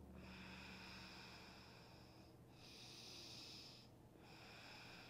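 Faint breathing, an airy breath sound broken by short pauses about two and a half and four seconds in. A faint low music drone fades out in the first second.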